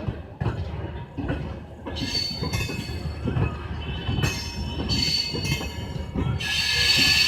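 Passenger train's LHB coaches rolling past, wheels knocking over the rail joints, with a high-pitched wheel screech that sets in about two seconds in and is loudest near the end.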